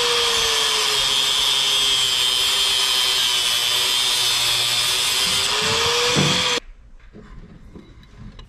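Angle grinder with a cut-off wheel cutting through a braided oil drain line clamped in a vise. The motor's pitch sags under load as the wheel bites and climbs back as it cuts through, then the grinder shuts off abruptly about six and a half seconds in.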